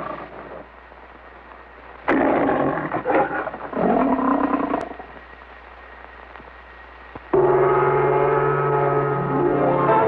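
Film-logo lion roaring three times in quick succession, rough and about a second each, with low film hiss between. About seven seconds in, title music starts suddenly on a long ringing low note with a melody over it.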